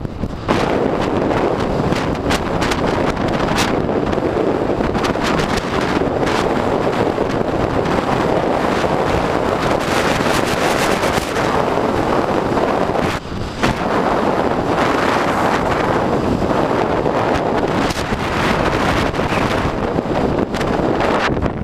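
Wind rushing and buffeting over the camera microphone on an electric bike riding at speed, a steady loud rush with occasional gusty thumps and a brief lull about halfway through.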